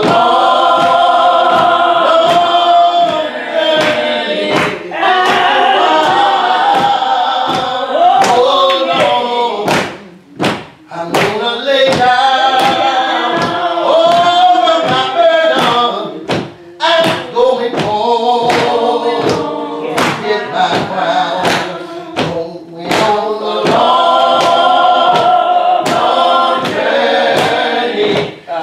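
Church gospel singing, with several voices carrying a slow melody over a steady beat of sharp knocks keeping time, with short breaks between lines.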